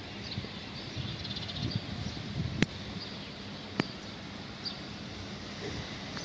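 Outdoor street ambience: a steady low background with some rumbling, faint high chirps now and then, and two sharp clicks, the first and louder about two and a half seconds in, the second about a second later.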